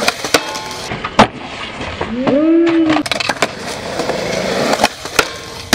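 Skateboard wheels rolling on skatepark concrete, with repeated sharp clacks and knocks of the board, the loudest about a second in. In the middle a person gives one drawn-out shout that rises and falls in pitch.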